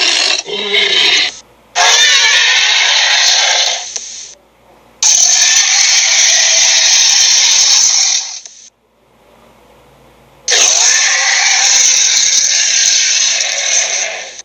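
Sharptooth, the cartoon Tyrannosaurus, roaring and growling in a film sound effect: four long, harsh roars of about one to four seconds each, with short pauses between them.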